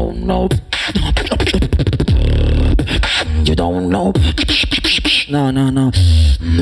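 Human beatboxing into a microphone: a steady rhythm of deep kick-drum thumps that drop in pitch and sharp snare-like clicks. Hummed, pitched bass notes join the rhythm in the last second or so.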